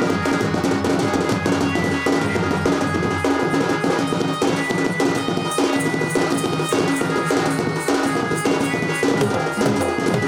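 Live Odia Danda Nrutya folk music: hand-beaten barrel drums (dhol) play a dense, fast rhythm under a sustained melody from an electronic keyboard.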